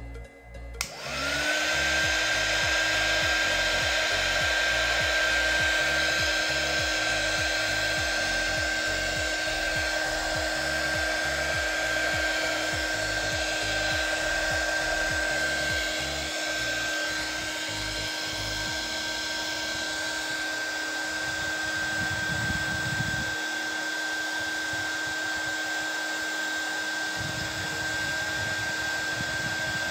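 A 300-watt mini hot air gun switched on about a second in: its small fan motor spins up at once to a steady high whine over the rush of air, a little noisy.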